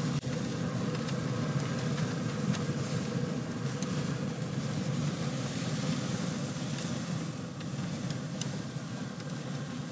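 Chicken wings sizzling on the grate of a Pit Boss pellet grill running on high heat, over a steady hum from the grill, with a few light clicks of metal tongs turning the wings.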